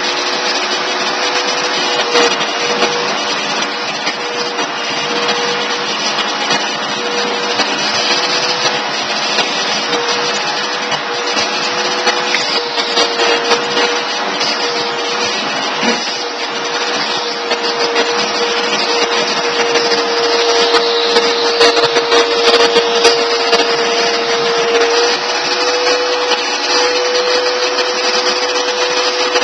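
Vacuum cleaner running steadily: a constant motor whine over rushing air, its pitch wavering slightly now and then.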